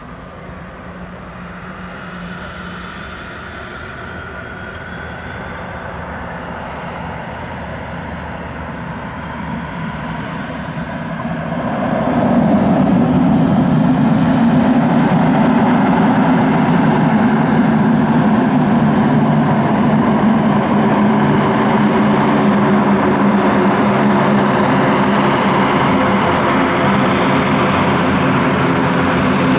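ATR 72-600 twin turboprop engines and propellers, growing steadily louder as the aircraft comes in. About twelve seconds in, the propeller sound jumps sharply to a much louder, steady drone, with several low steady tones.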